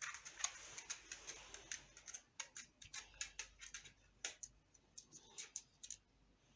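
Faint, irregular small clicks and ticks, several a second, over a light hiss in the first couple of seconds.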